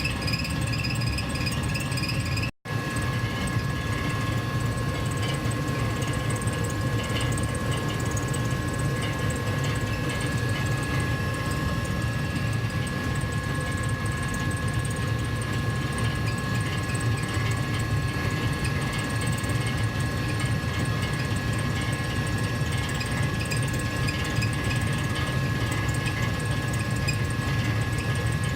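Gas furnace running steadily: a low hum with two faint high tones held over it. It drops out for an instant about two and a half seconds in.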